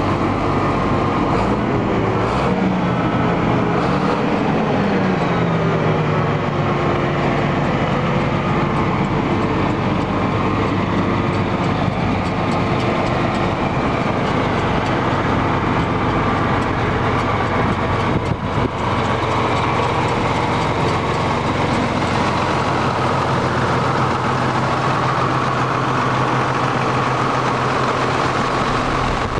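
A John Deere 8870 tractor's six-cylinder diesel engine running steadily at idle. Its pitch slides down and settles a few seconds in.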